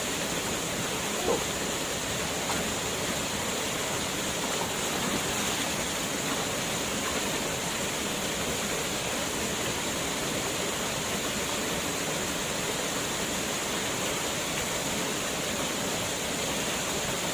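Waterfall pouring: a steady, even rush of falling water, with a brief faint knock about a second in.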